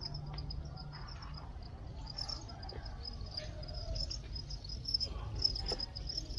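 Crickets in a cricket-rearing pen chirping, a continuous high-pitched stream of rapid short pulses, with a few faint knocks.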